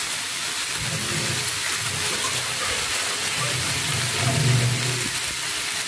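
White gongura (roselle) leaves sizzling in a hot pan with no oil: a steady, even hiss.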